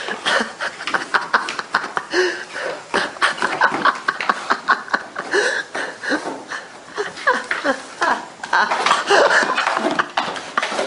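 Cardboard box knocking and scraping on a hardwood floor as a dog pushes it around with its head inside, in many quick clicks and scrapes, with people laughing over it.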